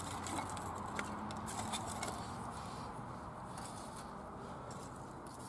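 Small dry twigs and sticks being pushed by hand into the steel firebox of a wood-burning camp stove: scattered light clicks and knocks of wood against metal over a steady background hiss.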